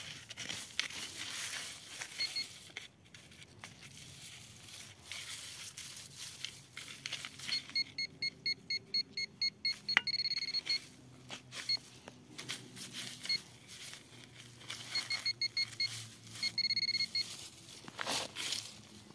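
Metal detector beeping in quick trains of short, high tones, signalling a small buried metal target taken for a button. Scraping and crackling of soil being dug and handled comes first, with one sharp click about halfway through.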